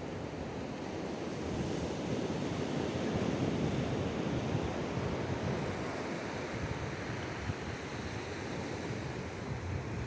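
Ocean surf breaking and washing over a rocky shore, a steady rush that swells a little a couple of seconds in and then eases, with some wind buffeting the microphone.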